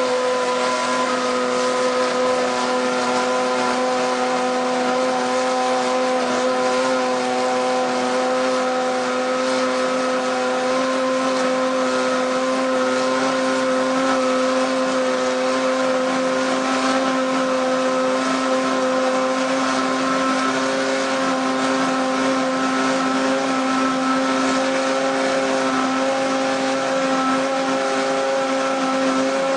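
Formula One V8 engine running at a steady speed, holding one constant pitch without rising or falling.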